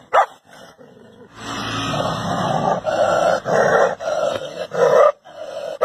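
A dog barks once, then growls and snarls for several seconds in uneven pulses.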